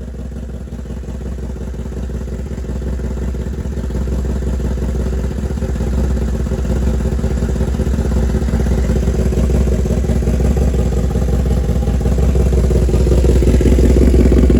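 2016 Kawasaki ZX-10R inline-four idling steadily through a full titanium SC-Project exhaust, the pitch holding even while it gets gradually louder.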